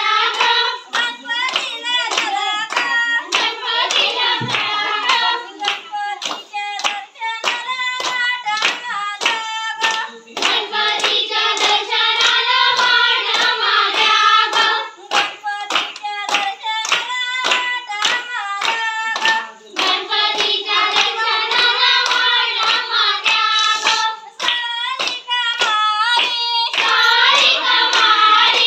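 Group of women singing a traditional Konkan women's dance song together, with steady rhythmic handclaps keeping the beat.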